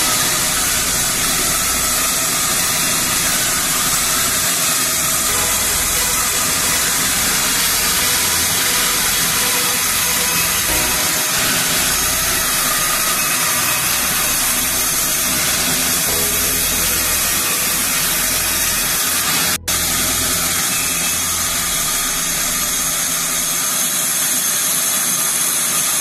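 Vertical band saw running and ripping lengthwise through a log: a steady hissing whir of the blade in the wood, broken off for an instant about two-thirds of the way through.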